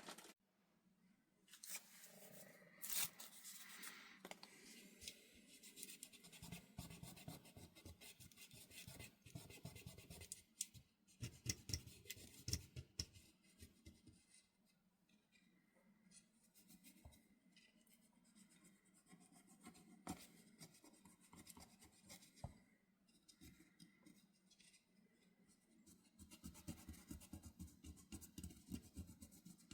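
Faint, irregular scraping and clicking of small hand tools working on a circuit board while old capacitors are being desoldered.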